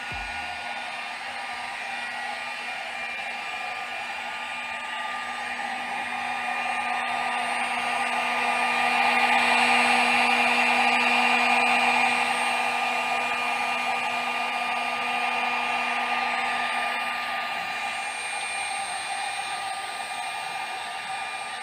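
Hair dryer running steadily, a whooshing blow of air with a motor whine, louder in the middle stretch and easing back toward the end. It is blowing onto water-damaged door wood to dry it out.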